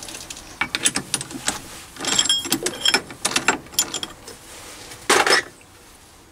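A mini lathe's self-centering chuck being worked with a chuck key, giving a run of irregular metallic clicks and rattles as the key and jaws turn. Just after five seconds in comes one louder, short metal clatter.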